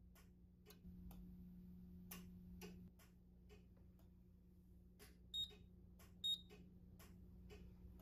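Faint ticking about twice a second over a low hum that swells for a couple of seconds near the start. Two short, high electronic beeps about a second apart, the loudest sounds, come from a Simplex fire alarm panel as its system reset completes.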